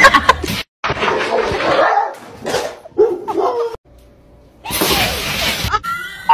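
Dog vocalising in short barks and yips over scuffling noise, cut off suddenly about two-thirds of the way through, then about a second of loud rushing noise.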